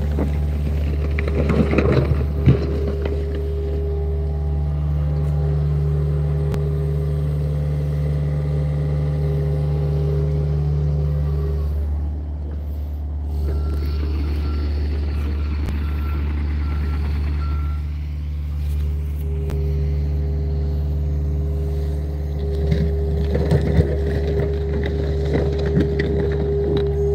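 John Deere compact excavator's diesel engine running steadily, its bucket scraping and clattering through dirt and rocks about two seconds in and again near the end. In the middle the machine moves back and a travel alarm beeps in a short series.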